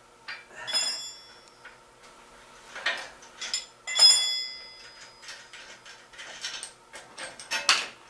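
Steel hand tools clinking and clanking as a wrench is picked up and handled, with a scatter of small metal knocks. Two clear ringing metal strikes stand out, about a second in and about four seconds in.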